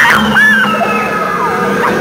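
Several high-pitched wailing, shrieking voices gliding up and down and overlapping, over a steady low hum.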